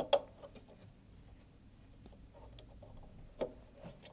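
Small clicks and light handling noise of wire connectors being pushed onto a washing machine heater element's terminals by a gloved hand. There are two sharp clicks right at the start and another about three and a half seconds in.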